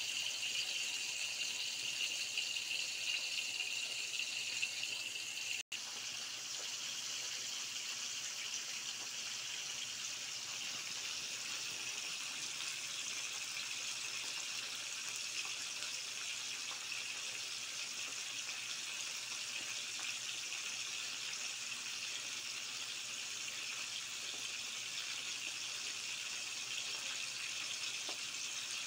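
Whole fish frying in hot oil in a steel wok, a steady sizzle. About six seconds in the sound drops out for an instant, and the sizzle goes on a little softer and more even.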